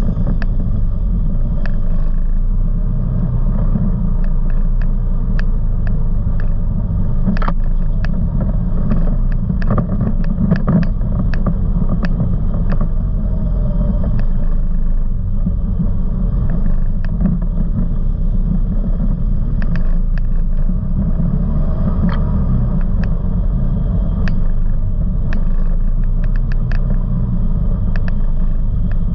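ATV engines running as the quads ride a bumpy dirt trail: a steady low rumble, with many sharp clicks and knocks from rattles and debris over the bumps.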